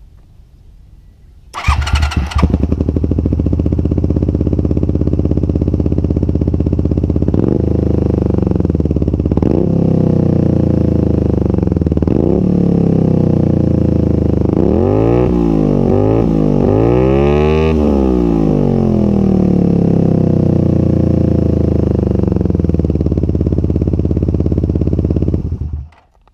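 Honda VTR250's 90-degree V-twin breathing through an LCI short stainless slip-on muffler with the baffle removed. It is started about one and a half seconds in and idles, taking a few short throttle blips. It revs quickly several times in a row around the middle, settles back to idle and is switched off just before the end.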